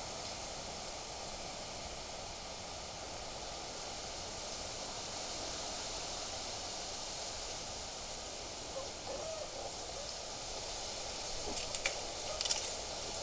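Steady wind hiss on the microphone. About nine seconds in comes a short, low hooting bird call, and a few sharp ticks follow near the end.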